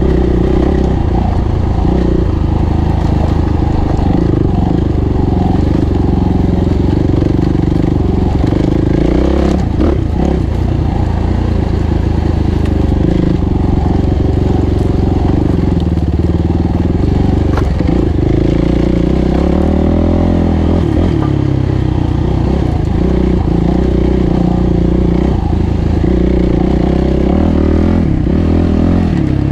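Suzuki RMX450Z's single-cylinder four-stroke engine running as the dirt bike is ridden along a rough trail, its revs rising and falling with the throttle.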